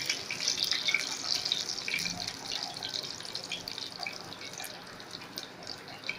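Hot oil sizzling and crackling in a frying pan as a tadka of cumin seeds, garlic and dried red chillies fries, with frozen curry leaves just added. The sizzle slowly dies down.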